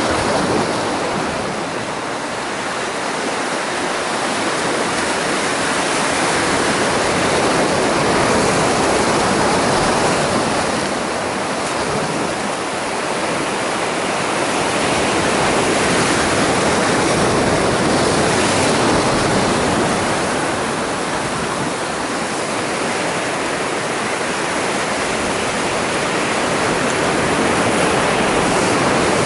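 Sea surf breaking and washing over shoreline rocks: a steady rushing that swells louder and eases again every eight to ten seconds.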